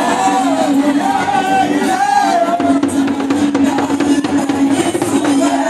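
Live amplified praise music: a voice singing over a steady held accompaniment note, with percussion joining in about halfway through.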